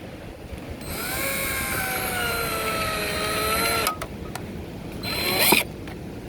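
Power drill driving a screw into the wall: a run of about three seconds with the motor's pitch slowly dropping as the screw bites, then a short second burst near the end to snug it tight.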